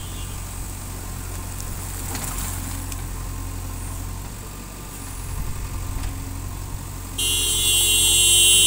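Diesel engine of a JCB backhoe loader running steadily at a low hum. About seven seconds in, a loud, high-pitched horn starts and holds on.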